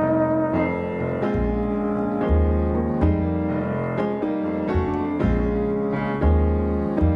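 Jazz grand piano playing chords and lines over a moving bass line. A trumpet's held note ends just after the start.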